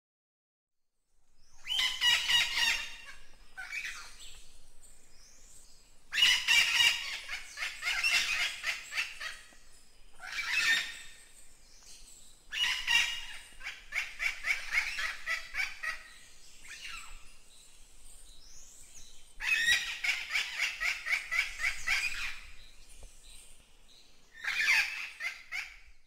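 Parrots calling in about six bouts of rapid, repeated calls, each bout lasting one to three seconds, with quieter chatter in between.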